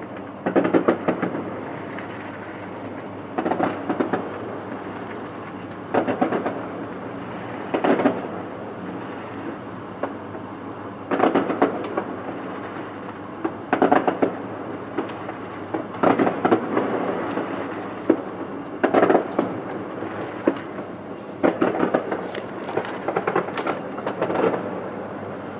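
Fireworks going off in repeated clusters of bangs and crackles, a new volley every two to three seconds, over a steady low rumble. The volleys come thicker and more crackly near the end.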